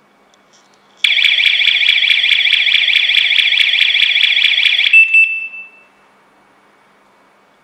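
Smart home-security siren set off by its motion detector, sounding a loud, rapidly warbling high-pitched alarm for about four seconds. It starts about a second in and stops with a short, fading beep.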